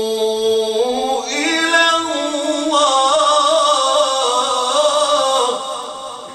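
A man's voice reciting the Quran in a melodic, drawn-out style: a long held note that rises in pitch about a second in, with ornamented wavering on the higher notes, then dies away near the end.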